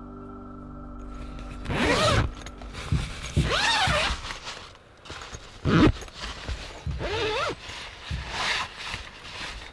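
Zipper on a roof-top tent's mesh door being pulled open in about six long strokes, each rising and falling in pitch.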